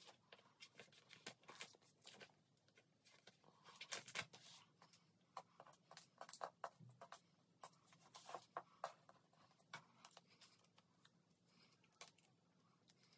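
Faint plastic rustling and irregular light clicks of photocards being slid into the pocket sleeves of a binder page, a little louder about four seconds in and again around eight to nine seconds.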